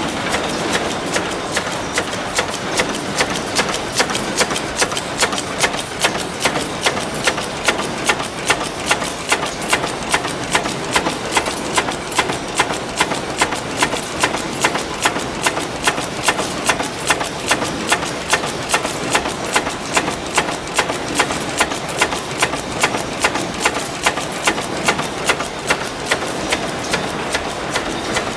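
Mechanical punch press running continuously, stamping steel strip fed from a coil through its die. It gives a sharp, regular stroke about twice a second over a steady machine hum.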